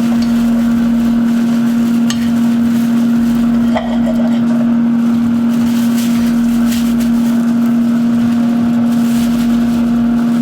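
Steady electric motor hum at one constant pitch, typical of a kitchen appliance fan running, with a few light clicks and knocks of kitchen utensils.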